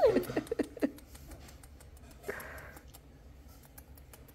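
A woman's cooing voice trailing off, then a quiet room with faint scattered ticks and one short breathy sniff about two and a half seconds in.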